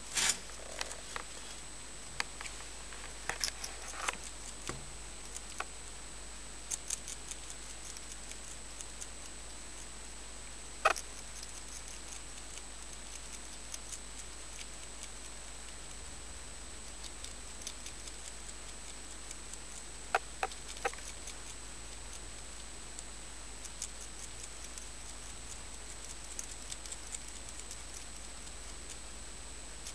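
Long-eared hedgehog eating mealworms from a dish: irregular small crisp clicks and crunches of chewing, with a few louder sharp clicks now and then.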